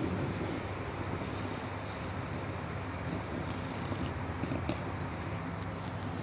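English bulldog snoring: a steady low rumble of breath through the nose and throat.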